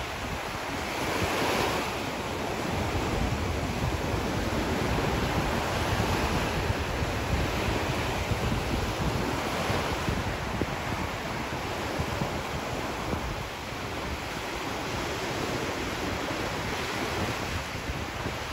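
Small waves breaking and washing up on a sandy shore, swelling every few seconds, with wind rumbling on the microphone.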